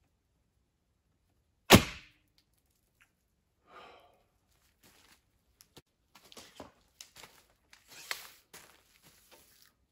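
A traditional recurve bow loosed once, about two seconds in: a single sharp snap of the bowstring with the thunk of the arrow striking the target. It is followed by softer rustling and light clicks of arrows being handled and nocked.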